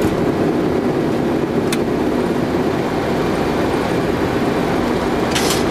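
Steady cockpit noise of a Boeing 737-800 taking off under takeoff thrust: a continuous rush of its CFM56 engines and airflow as the jet rotates and lifts off after a touch-and-go. A single faint click comes about two seconds in.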